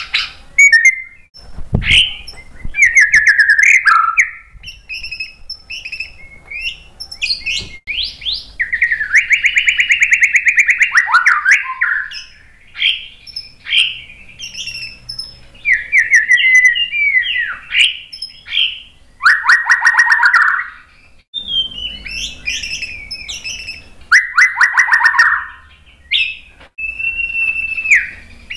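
White-rumped shama singing a loud, varied song: clear whistled notes, rapid trills and harsh buzzy phrases, broken by short pauses.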